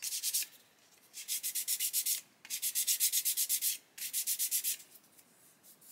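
Flat sanding stick rubbed quickly back and forth over superglue filler and a thin embedded steel strip on a plastic model tank skirt, at about eight strokes a second. It comes in four short bouts with brief pauses between, then stops near the end.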